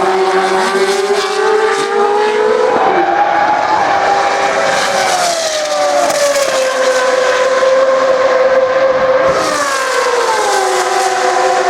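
Single-seater racing car engine at high revs, its note climbing for the first few seconds, then gliding down and holding steady before dropping again near the end.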